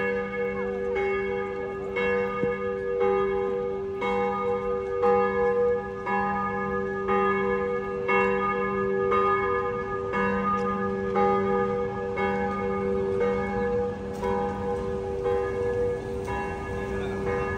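Church bells ringing, struck about once a second, each stroke leaving a long humming ring under the next.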